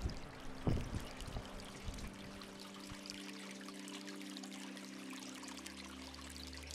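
Water trickling and splashing, a faint run of small drips and gurgles. About halfway in, low steady tones join it and hold.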